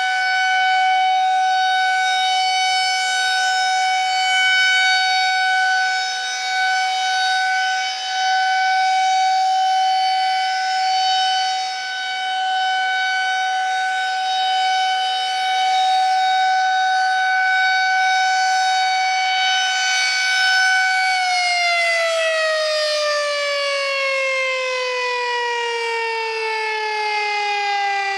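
Federal Signal 2001-130 electromechanical outdoor warning siren sounding a steady single tone, its loudness swelling and dipping slightly. About three quarters of the way through the tone begins a long, smooth fall in pitch as the siren winds down after being shut off.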